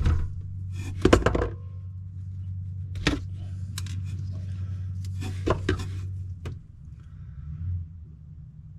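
Wire strippers stripping the insulation off the ends of the detector's wires: a few clusters of sharp clicks and snips, about a second in, at about three seconds and again around five to six seconds in. Under them runs a steady low hum that drops away about two-thirds through.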